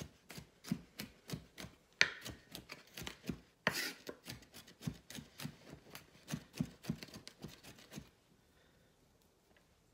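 Chef's knife dicing an onion on a wooden cutting board: quick, uneven knocks of the blade against the board, about three a second, stopping about two seconds before the end.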